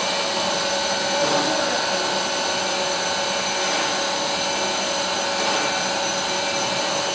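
Double-spindle CNC wood router running steadily, its spindles giving a constant whine made of several held tones over an even machine noise.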